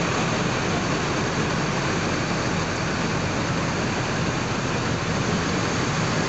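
Steady, unbroken noise of bus engines idling, with a faint low hum and no distinct events.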